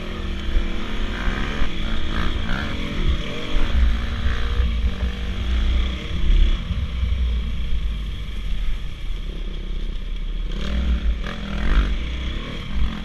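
Dirt bike engine running on the move, its pitch rising and falling as the throttle is opened and closed, with a low wind rumble on the microphone.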